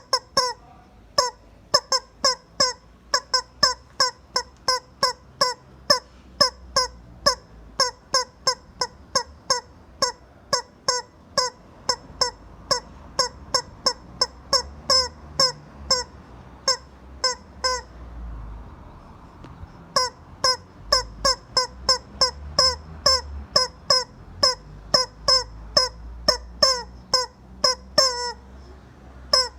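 Rubber chicken squeeze toy squawking in short repeated honks, about two a second, with a pause of a couple of seconds around the middle before it starts again.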